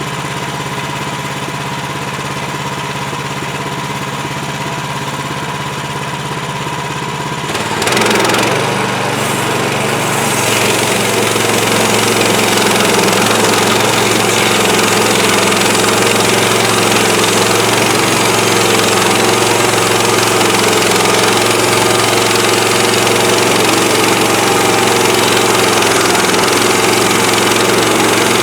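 Woodland Mills HM130MAX portable bandsaw mill's gasoline engine running steadily. About eight seconds in, its note drops and a louder, broader sawing noise builds and holds, as the engine takes load from the band blade cutting through a log.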